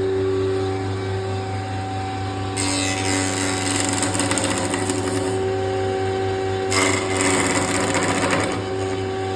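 Cricket-bat pressing machine running with a steady motor hum, breaking twice into a few seconds of rapid mechanical rattling as the willow blade is pressed.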